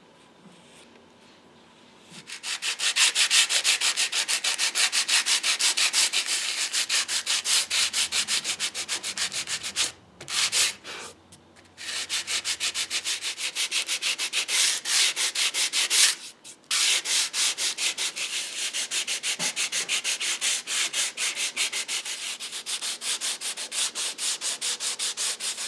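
Sandpaper on a hand sanding block rubbing a walnut repair patch flush with the chair's wood: rapid, even back-and-forth strokes that start about two seconds in and stop briefly a few times.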